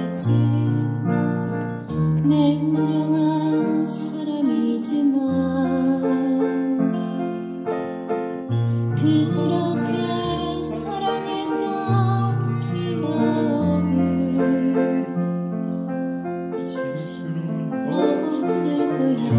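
Digital piano playing a slow song, with long held bass notes changing every couple of seconds under the melody.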